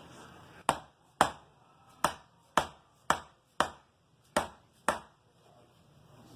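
Chiropractor's hammer striking the shoulder area in a steady series of eight sharp knocks, about two a second, used to loosen tight, stuck muscles.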